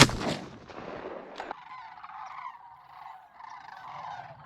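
A single shotgun shot at the start, a follow-up shot to finish a wounded duck, fading over about half a second. It is followed by a distant flock of large birds calling steadily.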